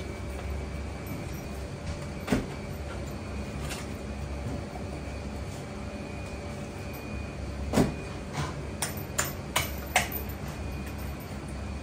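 A few sharp clicks and knocks from handling and cutting a hanging monkfish carcass with a knife, one about two seconds in and a quick cluster of five or six in the last few seconds, the loudest among them. Under them runs a steady kitchen hum.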